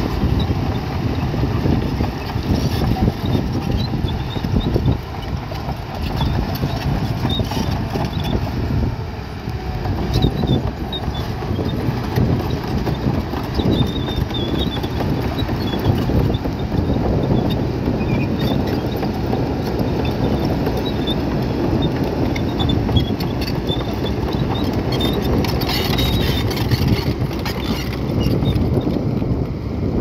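Bulldozer at work pushing rock: a steady low rumble with continual irregular clattering and crunching of stone.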